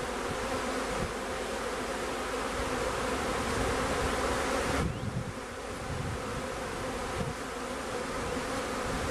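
A colony of package honey bees buzzing steadily over an open Langstroth hive, a dense continuous hum that dips briefly about halfway through.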